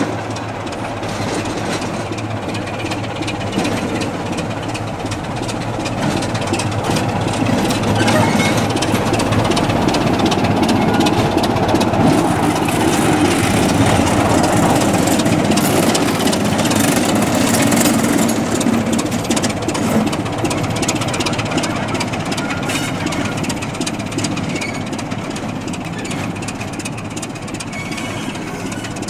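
Diesel engine of a heritage mainline diesel locomotive running as the locomotive passes beneath the bridge. It grows louder to a peak in the middle, then fades as the locomotive draws away.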